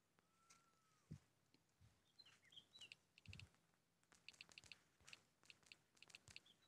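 Near silence: faint room tone with a few distant bird chirps and scattered light clicks.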